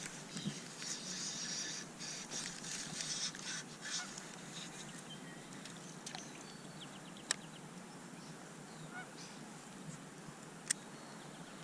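Geese honking repeatedly for the first few seconds, then dying away. Later come two single sharp clicks.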